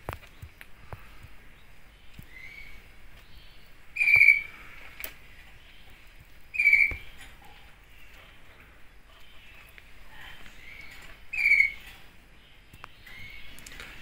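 Downy kestrel nestlings calling from the nest: three loud, short, high calls a few seconds apart, with fainter calls between them.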